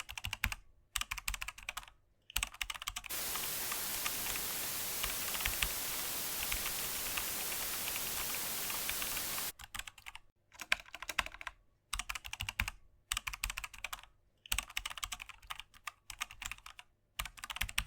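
Short bursts of rapid clicking with brief pauses between them, broken from about 3 s to 9.5 s by a steady hiss with faint crackles in it.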